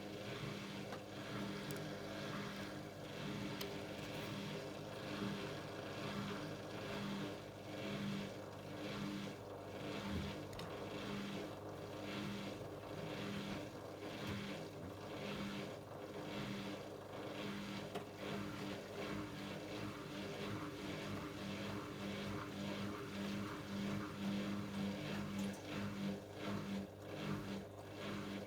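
AEG LS60840L washing machine turning its drum: a steady pulsing motor hum with repeated swishes of water and laundry as the drum turns.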